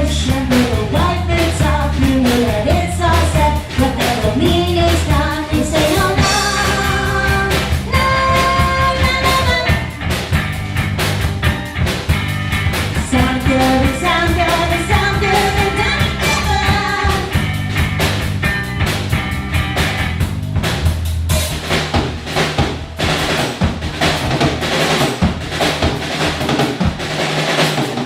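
Live garage/punk-style rock trio playing: drum kit, bass and electric guitar with a vocal line, sliding melodic notes at first, then held notes. From about 21 seconds in the melody drops back and the drums take over with dense, busy hits.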